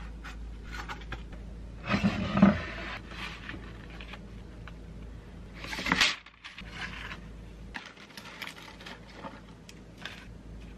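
Kitchen handling noises: a loud scrape and knock about two seconds in as the frying pan is handled and set down after tortillas are slid onto a wooden board. Parchment paper rustles, swelling just before six seconds in and cutting off sharply, then light taps and rustles follow.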